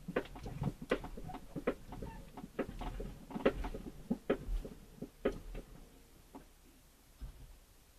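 A series of light, irregular clicks and taps, a few a second, thinning out and stopping about six seconds in.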